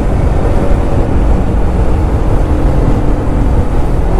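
Motorcycle under way: a steady, loud rush of wind and road noise on the rider's helmet microphone, with the engine running underneath at a steady pitch.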